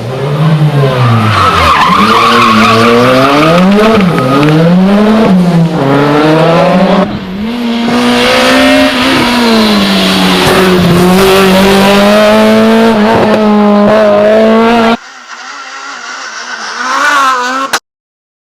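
Rally car engine at full load, revs rising and falling sharply through gear changes and corners, with tyre squeal, then held high and steady. About fifteen seconds in the sound cuts abruptly to a quieter car engine that revs up briefly and stops suddenly near the end.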